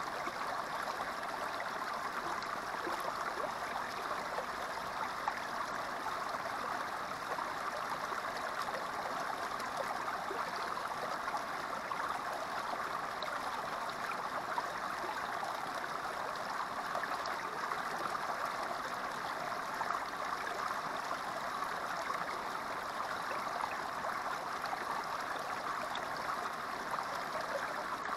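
Small creek flowing steadily, water spilling over a low rock ledge into a shallow pool with a constant gurgling rush.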